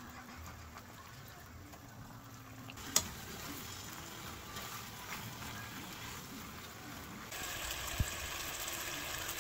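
Steady kitchen hiss, like frying or running water, that gets suddenly louder about seven seconds in, with two sharp clicks, one about three seconds in and one near the end.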